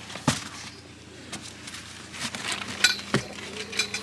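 Handling noise as a cardboard box is set in place in a car: several sharp knocks, two of them close together a little before three seconds in, with rustling between them and a faint steady hum underneath.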